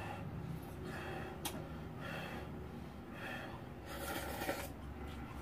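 Soft breathing and mouth sounds of a person eating noodles close to the microphone, as short noisy puffs about once a second.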